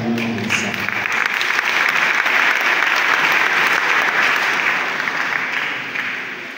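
A church congregation applauding. The clapping swells right after the spoken address ends, holds steady, then dies away near the end.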